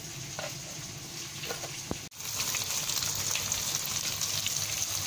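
A few light knife cuts through okra on a wooden chopping board. About two seconds in, a steady sizzle takes over as white radish, okra and chillies stir-fry in hot oil in a wok.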